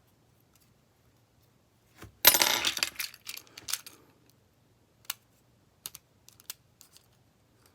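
A small metal piece drops onto a hard work surface about two seconds in, clattering with a brief high ring. A scatter of light clicks and ticks follows as the phone's circuit board is worked over with tweezers.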